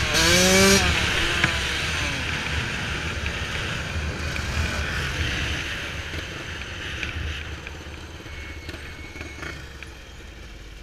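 Yamaha YZ125 two-stroke dirt bike engine revving up in the first second. The throttle then eases off and the engine sound falls away gradually as the bike rolls on at low revs.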